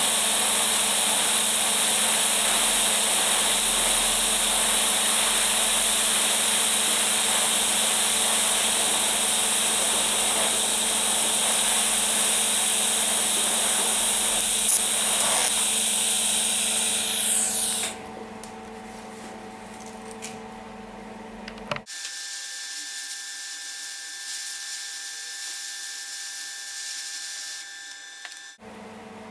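TIG welding arc: a steady, even hiss over a low electrical hum, which stops about 18 seconds in, leaving only a faint steady hum.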